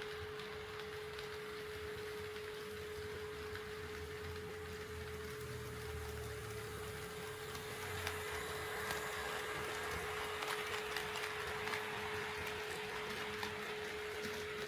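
HO scale model train running on the layout's track, with a steady hum. Its rolling noise grows louder about halfway through, with light clicks of the wheels over the rail joints.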